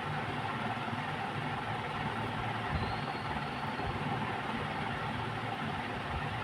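Steady mechanical whir, with a faint high tone lasting about half a second near the middle.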